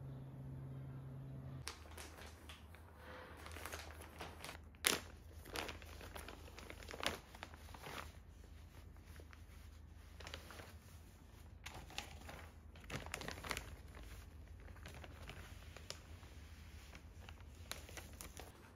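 Clear plastic poly bags crinkling and crackling as new cotton T-shirts are handled and slid out of them, in irregular bursts, the loudest about five seconds in. A faint low hum sits underneath.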